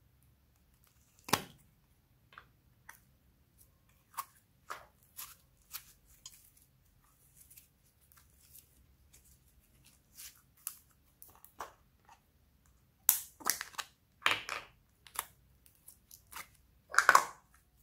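Slime being squeezed and pressed by hand, giving short sticky crackles and pops at uneven intervals, with louder clusters of crackling near the end.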